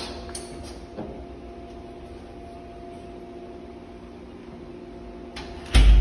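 A door swinging shut under a commercial hydraulic door closer that is being tested after its closing-speed valve was adjusted, with a faint click about a second in, then the door latching with a loud thud near the end.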